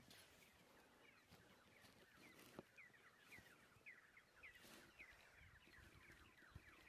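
Near silence, with faint bird chirps: short downward-sliding notes repeating about twice a second, starting about two seconds in.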